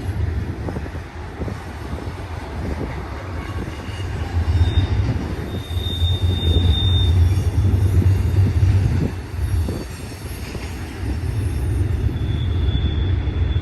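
Loaded intermodal freight cars (trailers on spine piggyback cars) rolling past on the main line: a steady rumble of wheels on rail. A thin high wheel squeal rises over it about five seconds in, and again near the end.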